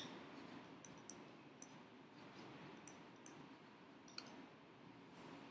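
Faint, irregularly spaced clicks of a stylus tip tapping a pen tablet during handwriting, about eight in all, over near-silent room tone.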